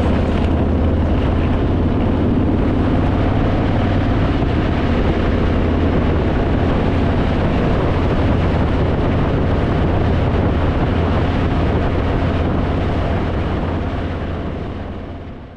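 Harley-Davidson Fat Boy's V-twin engine running steadily at highway speed, with wind and road rush over it, fading out near the end.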